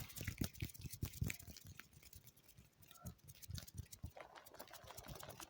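Close-miked water handling for ASMR: a run of irregular, soft wet clicks and taps.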